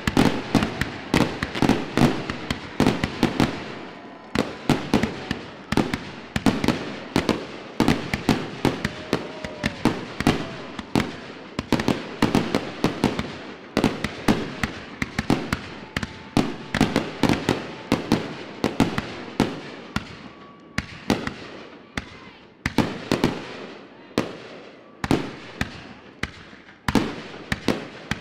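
Aerial fireworks shells launching and bursting in a rapid, continuous barrage: several sharp bangs a second, thinning out a little near the end.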